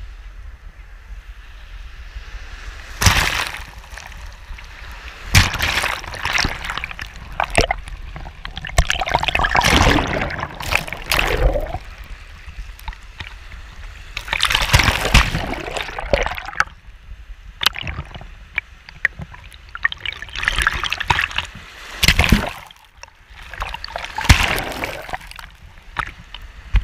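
Small shore waves washing over a camera at the waterline: water sloshing and splashing around it in surges every few seconds, over a steady low rumble of surf.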